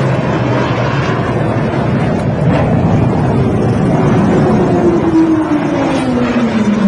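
Chengdu J-20 stealth fighter's twin turbofan engines roaring during a low display pass, with a steady rushing jet noise and a tone that falls in pitch over the last few seconds as the jet goes by.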